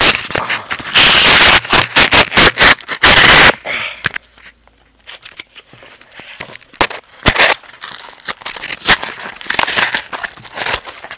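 A mailing package being opened by hand right at the microphone, crackling, scraping and tearing loudly for the first three or four seconds. Quieter scattered clicks and rustles follow, then the rustling picks up again in the second half.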